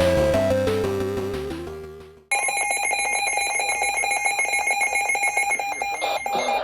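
Music fades out over the first two seconds. Then a loud electronic emergency alert tone starts abruptly about two seconds in and holds steady with a fast, even pulse.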